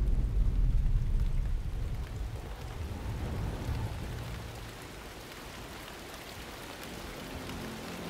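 Deep rolling thunder rumble that fades over the first few seconds, giving way to steady hissing rainfall.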